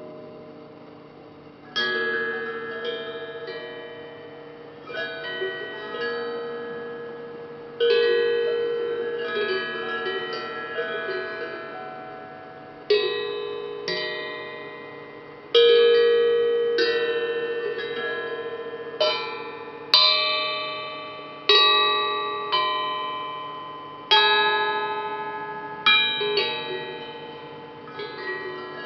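Hamon, an iron folk instrument, struck note by note in a slow, unhurried melody. Each bell-like note starts sharply and rings out, fading slowly, with several notes sometimes sounding together.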